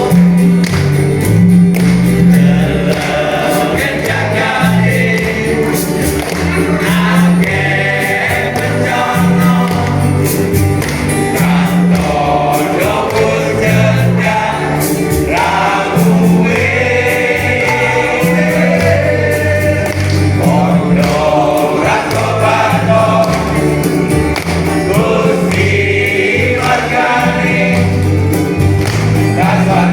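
Choir singing Christian gospel music over an accompaniment with a heavy bass line and a steady beat.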